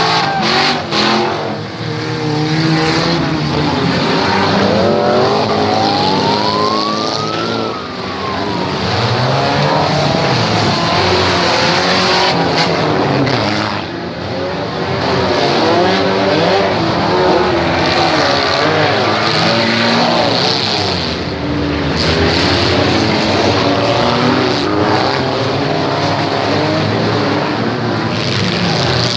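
Several demolition derby cars' engines revving and slowing at once, with tyres skidding on the track. About seven seconds in, one engine revs up clearly and drops back.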